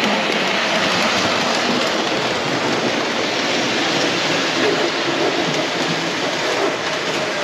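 Three-rail O-gauge toy train running on a metal track layout: a steady rolling noise of its wheels on the rails.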